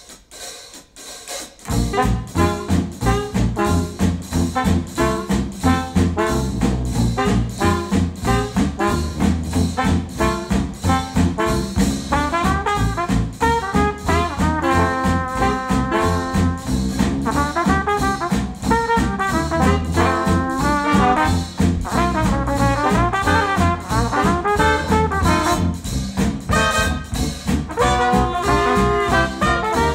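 Focal Chora 806 bookshelf speakers, driven by an NAD C700 amplifier and picked up by room microphones, playing a retro jazz track with a brass section over a steady bass and drum beat. The music starts about two seconds in after a brief gap between songs.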